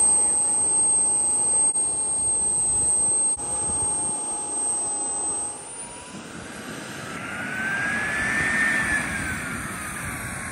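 RC model jet's engine whining steadily. About six seconds in its pitch climbs, peaks and then drops back, as when the model's throttle is raised or it passes by.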